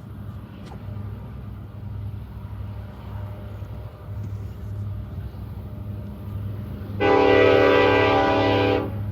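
Nathan Airchime K5-series five-chime locomotive air horn sounding one steady blast of about two seconds, about seven seconds in, over a low, pulsing rumble.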